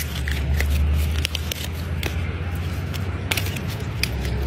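Crisp flatbread crackling and tearing as hands lift it and break pieces off, a scatter of sharp little crackles, over a steady low rumble.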